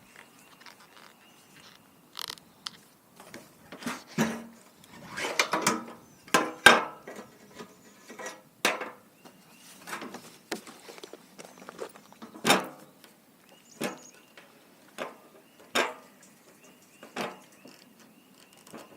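Hands working on generator parts: a dozen or so irregular clicks, knocks and short scrapes of hard parts being handled, with quiet gaps between.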